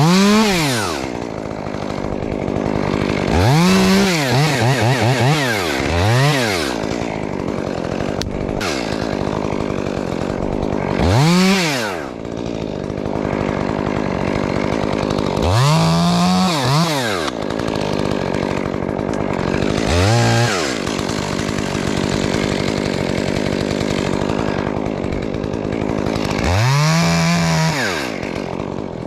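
Gas chainsaw cutting the face notch in a dead fir's top, running steadily in the wood. The engine speed swells up and back down about seven times.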